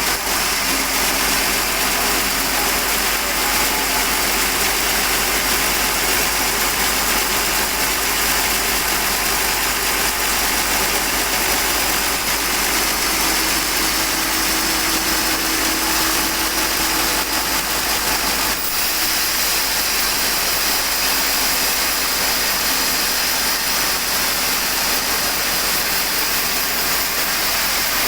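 Sawmill machinery running steadily with a loud, continuous mechanical noise, the kind made while sawing a teak log.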